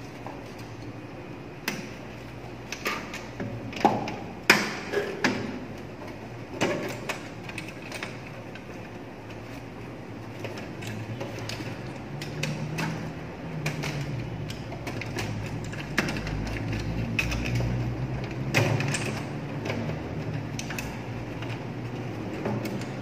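Irregular clicks and taps of a screwdriver and plastic relay parts as a faulty thermal overload relay is unfastened from the contactors in a motor-control panel. A low steady hum comes in underneath from about halfway.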